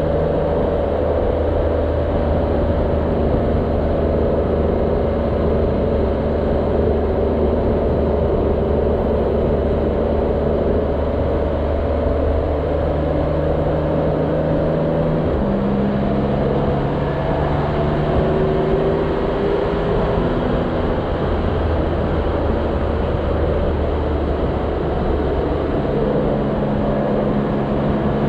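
Motorcycle engine running at road speed, heard with wind and road noise from the rider's seat. The engine note changes about halfway through and again near the end.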